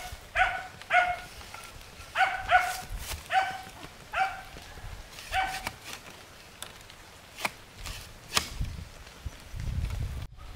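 A dog barking in short, high yips, about seven in the first six seconds. A few sharp clicks follow later.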